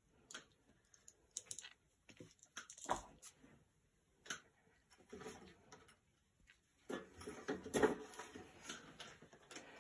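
Knives and leather sheaths being handled and laid down on a leather mat: scattered light clicks, knocks and rustling, busiest near the end.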